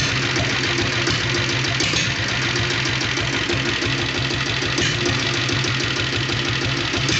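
Royal Enfield Bullet's single-cylinder diesel engine, the factory 7.5 HP unit, idling steadily with an even knocking beat.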